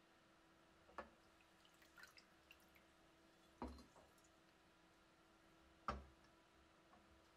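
Faint drips and small splashes as a steel bayonet is lifted out of a shallow glass tray of liquid and laid back in. A few soft knocks of the metal against the glass come through, the loudest about six seconds in.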